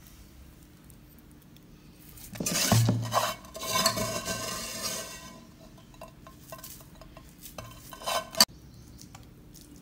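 Metal kitchen vessels scraping and clattering for about three seconds, starting about two seconds in, with a ringing metallic tone under the scrape. A single sharp knock comes near the end.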